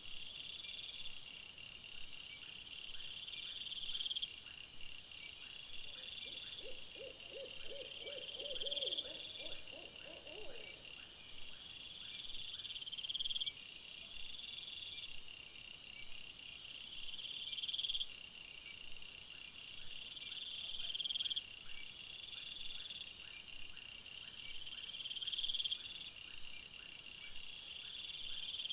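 Nighttime chorus of calling animals: high trills that swell and repeat every couple of seconds, with steady high pulsing above them. About six seconds in, a lower, rapidly pulsing call joins for about four seconds.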